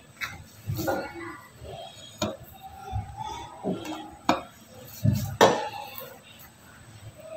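Cake scraper scraping chocolate ganache around the side of a cake on a metal cake turntable, with a few sharp clinks and knocks, the loudest about five and a half seconds in.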